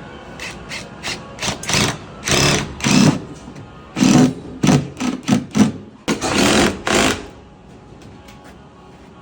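Tape being pulled off the roll in a series of loud rasping rips, some short and some drawn out for half a second or more, ending about seven seconds in.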